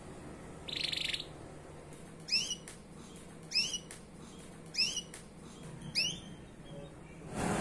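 Domestic canary calling: a short buzzy trill about a second in, then four sharp, falling chirps about a second and a quarter apart.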